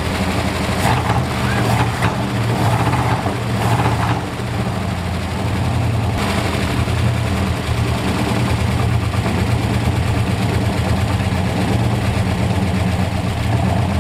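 The 1964 Ford F250's engine running steadily, just brought back to life after sitting for over a decade.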